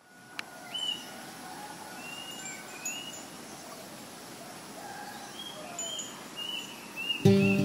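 Outdoor ambience with several birds chirping: short calls, some rising, over a steady background hiss. Near the end an acoustic guitar chord is strummed and rings on.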